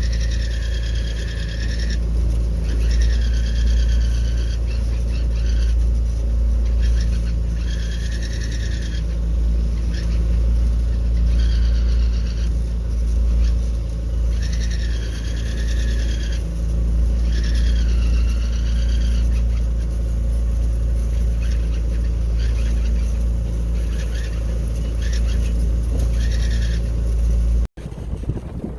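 A boat's engine drone with a steady deep rumble, over which a high squealing tone rises and falls again and again, each squeal lasting a second or two.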